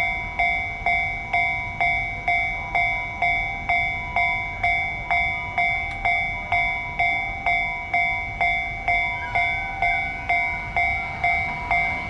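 Japanese railroad crossing warning bell ringing, an electronic 'kan-kan' strike repeating steadily about two and a half times a second, each strike ringing briefly and dying away. It is the alarm sounding while the crossing is closed for trains.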